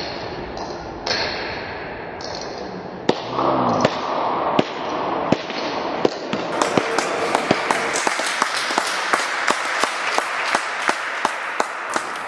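A few scattered sharp knocks and a brief voice, then a steady series of sharp taps, about three a second, from about six and a half seconds in.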